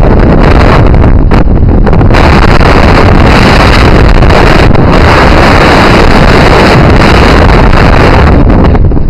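Strong wind buffeting the camera's microphone: a loud, steady rumble that overloads the recording.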